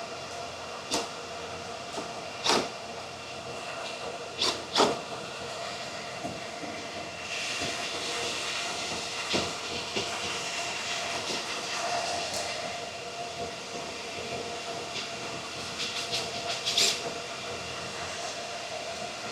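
A steady machine hum with a faint high whine in it. Over it, sharp metallic clicks and clinks of a screwdriver and screws come every few seconds as the screws holding an ASIC miner's fan mount are taken out. A hiss swells for a few seconds in the middle.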